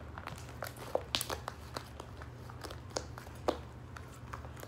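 Fluffy slime being squished and stretched by hand, giving irregular sticky pops and clicks, a few of them louder, about one second in and again around three and a half seconds. The slime is still too sticky and needs more activator.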